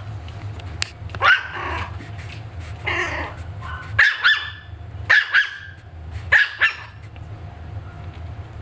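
Maltese puppy yapping at its own reflection: about eight short, high-pitched barks, several in quick pairs.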